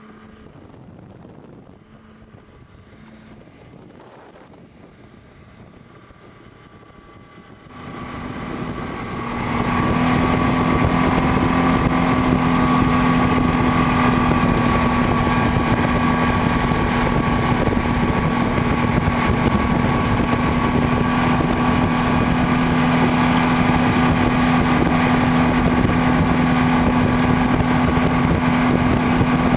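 A 250 HP Yamaha VMax four-stroke outboard runs at steady high speed while towing a barefoot skier, with wind and water rush. It is faint at first, then much louder from about eight seconds in, holding one steady pitch.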